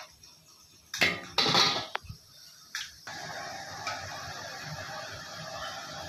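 A metal slotted skimmer scrapes and clatters against an iron kadai as fried pakoras are worked in the oil, in a few loud strokes over the first three seconds. After that, a steady even noise continues.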